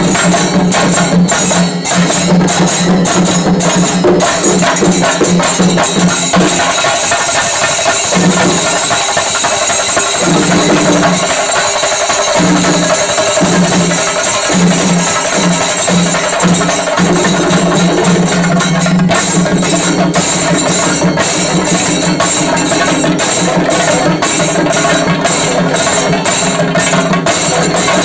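Chenda melam: a large ensemble of Kerala chenda drums beaten with sticks in a loud, fast, dense continuous roll. In the last third the strokes fall into a clear pulse of about two accents a second.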